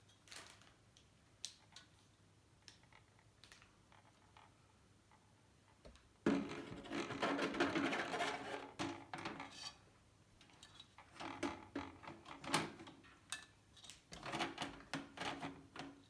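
Small clicks and clatter of computer hardware being handled, with a longer, denser stretch of rattling from about six seconds in and another burst near the end.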